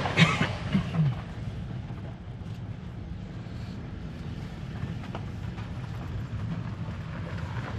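Steady low rumble of a vehicle driving slowly, heard from inside the cabin.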